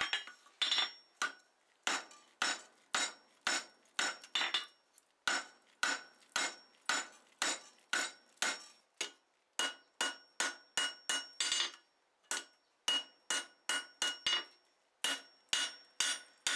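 Rounding hammer striking a red-hot flat steel bar on the anvil, drawing it down over the horn and then on the face: steady blows about two a second, each with a ringing note from the anvil. The blows pause briefly about two-thirds of the way through.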